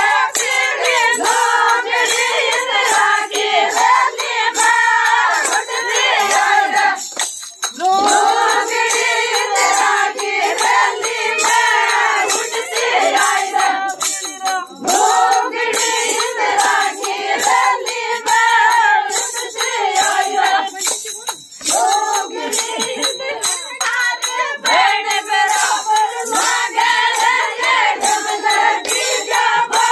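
Group of women singing a Meena folk song (ladies' geet), with a rhythmic jingling and clapping beat. The singing stops briefly three times, between lines.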